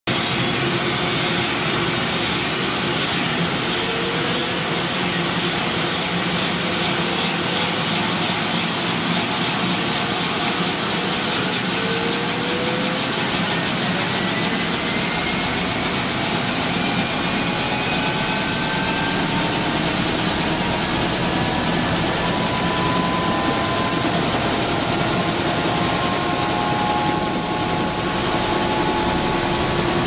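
Helicopter engine and rotor running on the ground before take-off, heard from inside the cabin: a steady loud noise with a high whine that rises in pitch over the first ten seconds as it spools up, and lower whines slowly rising later.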